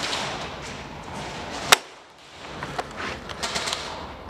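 Airsoft gunfire in an indoor arena: one sharp, loud crack about 1.7 s in, then a run of lighter, scattered clicks from more shots and BB hits.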